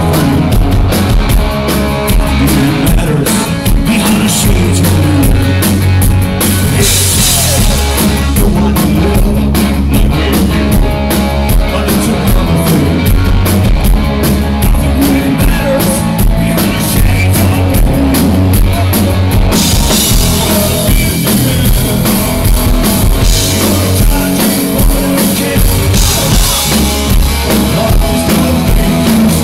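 Live rock band playing loud: drum kit with busy cymbals, electric guitar and bass guitar, with a singer. About two-thirds of the way in the cymbals open into a louder wash.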